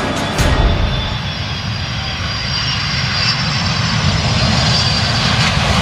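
Twin-engine jet airliner's engines on the runway: a steady rushing noise with a faint high whine.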